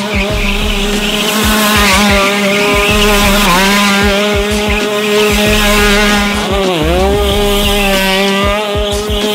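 Shifter kart's two-stroke engine held at high revs while the kart slides in donuts, its tyres skidding on the concrete. The revs dip briefly about seven seconds in and climb straight back.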